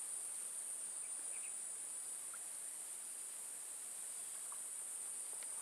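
Steady high-pitched drone of insects, with a couple of faint short chirps.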